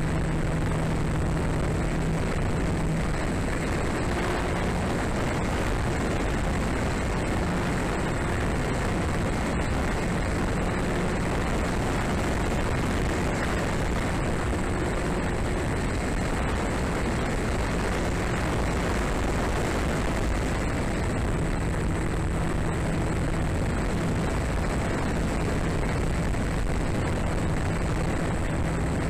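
Model airplane's electric motor and propeller in flight, heard through steady wind rush over a tail-mounted action camera's microphone. A low propeller hum fades and returns a few times as the throttle changes, over a thin, steady high whine.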